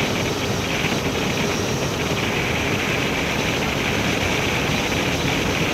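Steady wind noise over the microphone mixed with the Suzuki Gixxer SF 155's single-cylinder engine running flat out in fifth gear near its top speed.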